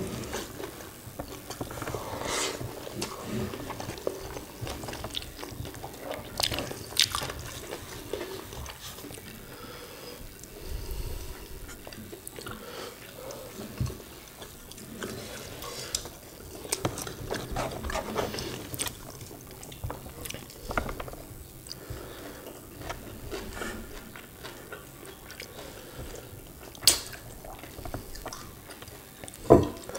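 Close-miked eating sounds of two people eating rice and sambal prawns with their hands: chewing, lip smacks and the wet sounds of fingers in rice. Scattered sharp clicks, two louder ones near the end.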